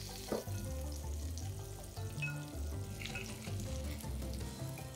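Okonomiyaki frying in an oiled pan, a steady sizzle once the lid is off, under background music with a repeating bass line.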